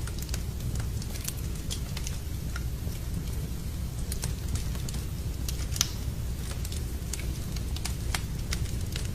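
Wood fire crackling in a fireplace: irregular sharp pops and snaps over a steady low rumble, with one louder pop about six seconds in.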